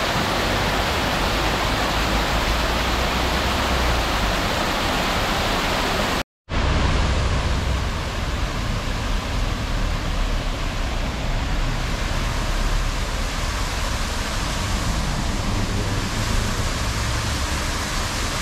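Fountain water splashing in a steady rush, close up. After a brief cut about six seconds in, the same fountain's falling water sheet is heard from further off, over a steady low rumble.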